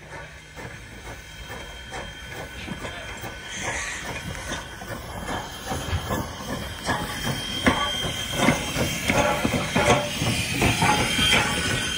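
Canadian National No. 89, a 1910 2-6-0 steam locomotive, approaching: steam hissing with a string of chuffs and clanks from the engine, growing louder as it nears.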